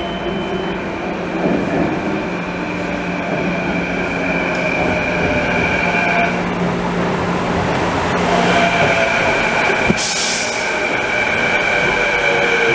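Canada Line SkyTrain train approaching and pulling in on the elevated guideway. Its electric drive gives a steady high whine that drops out for a couple of seconds midway and then returns. There is a short hiss about ten seconds in.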